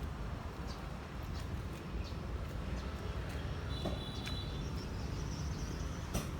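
Steady low background hum with scattered faint clicks, and a brief high-pitched chirp about four seconds in.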